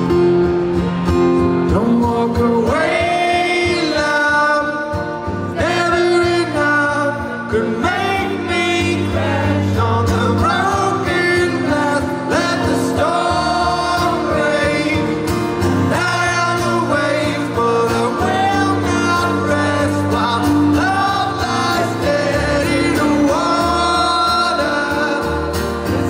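Live male vocal over a strummed acoustic guitar, a slow song. The guitar plays alone at first, and the voice comes in a couple of seconds in.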